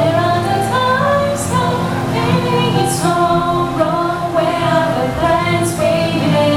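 Teenage girls singing a pop song over steady musical accompaniment.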